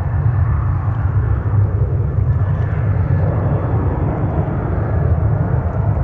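Southwest Boeing 737 jet engines at takeoff power during the takeoff roll, heard across the water as a loud, steady low rumble.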